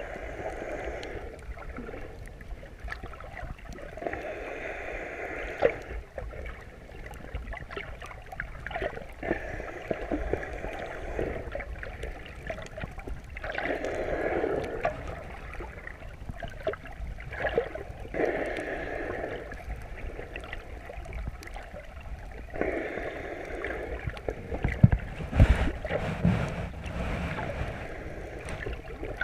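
Underwater sound picked up by a chest-mounted GoPro in its housing. Water sloshes and rumbles with scattered sharp crackling clicks, and a muffled swell returns about every four to five seconds. A few louder low knocks come near the end.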